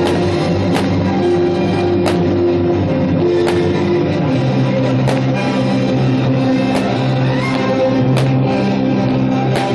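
Guitar-led rock music with long held notes, punctuated by sharp hits about every second.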